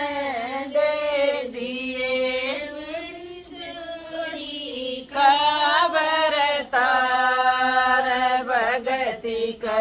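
Women singing a Hindi folk bhajan unaccompanied, long drawn-out melodic lines with no instruments; the singing grows louder about five seconds in.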